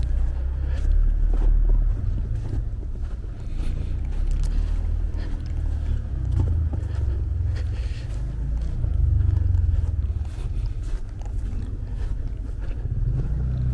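Footsteps crunching in fresh snow over a steady low rumble.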